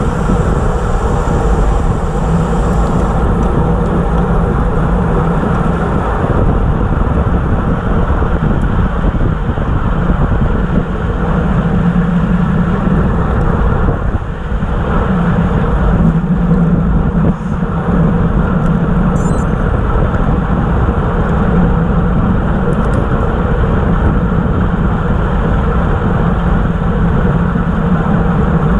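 Steady wind rushing over the microphone of a camera mounted on a racing road bicycle, mixed with road noise from riding at about 25 to 28 mph. There is a brief dip in level about halfway through.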